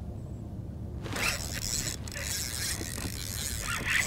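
Spinning reel cranked against a hooked tautog, its gears whirring fast from about a second in.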